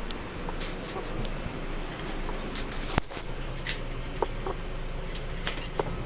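Scattered light clicks and rustles over a steady low background hum, with one sharp click about three seconds in.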